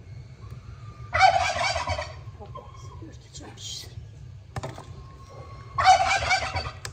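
A turkey gobbling twice, each gobble a rapid rattling call of about a second, the second coming some five seconds after the first.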